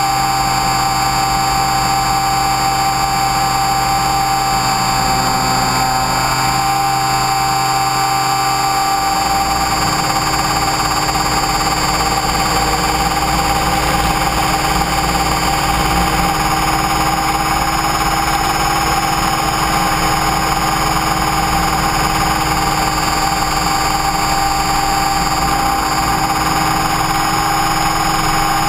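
Align T-Rex 550E electric RC helicopter heard through its onboard camera in flight: a steady whine of several tones from the motor, gears and rotor. The low hum shifts about nine seconds in.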